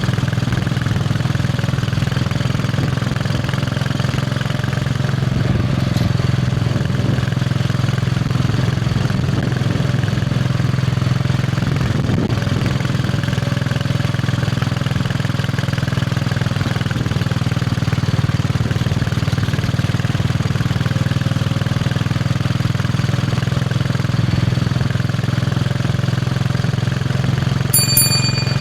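Royal Enfield Bullet 500's single-cylinder engine running steadily with its low thump. Just before the end there is one brief high ping.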